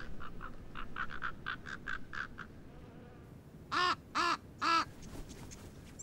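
Ravens calling: a quick run of short notes, about five a second, then three loud caws close together about four seconds in.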